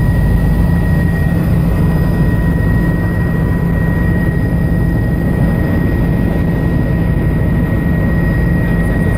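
Helicopter in flight heard from inside the cabin: a loud, steady drone of engine and rotor with a constant high whine over it.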